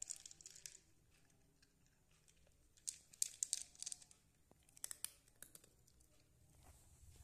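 A cat crunching dry kibble in three bursts of quick, crisp crunches: one at the start, one about three seconds in, and a shorter one about five seconds in.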